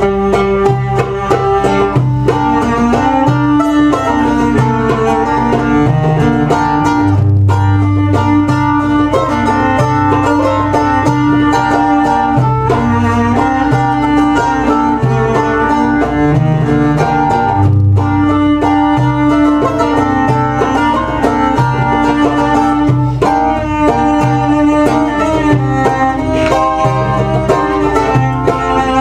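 Live acoustic ensemble music: a plucked mandolin-type string instrument carries a quick melody over low, steady bass notes.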